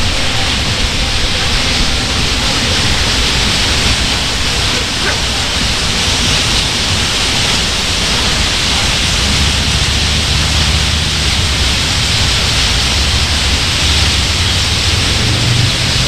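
Continuous din of a huge flock of purple martins chattering at their roost, thousands of calls blending into a steady high hiss, with a low rumble underneath that grows louder in the second half.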